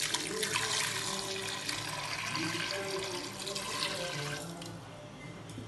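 Shaken curd buttermilk poured from a steel vessel into a clay pot: a steady splashing pour that starts abruptly and dies away about four and a half seconds in.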